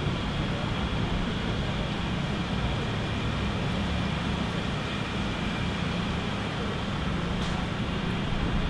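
Small canal work boat's engine running steadily as the boat moves, a constant low hum.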